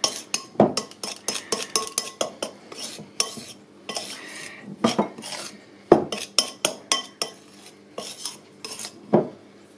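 A knife clinking and scraping against a ceramic mixing bowl in irregular strokes as it cuts water into crumbly shortcrust pastry mix to bind the dough.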